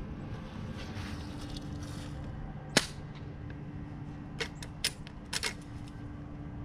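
Elite Force Legends Saddle Gun, a CO2-powered lever-action airsoft rifle, fires a single sharp shot about three seconds in. A few lighter clicks follow a second and a half later.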